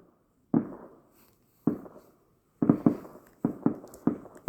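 Distant fireworks going off: two separate bangs with echoing tails, then a quick run of bangs from near the middle.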